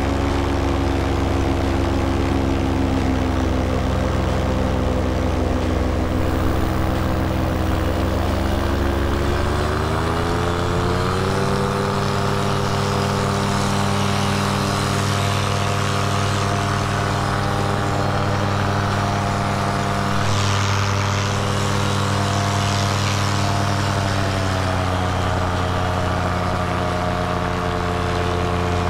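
Paramotor engine driving its repaired carbon-fiber propeller in flight, running steadily. The engine speed climbs about a third of the way in, holds, and eases back a little near the end.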